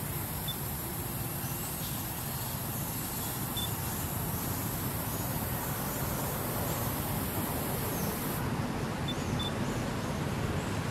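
Steady outdoor background noise with a low rumble and a high hiss; the hiss cuts off about eight seconds in.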